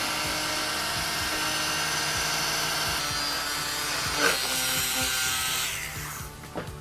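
Feeke electric fabric shaver (lint remover) running, its small motor and spinning blades giving a steady hum. It winds down and stops near the end.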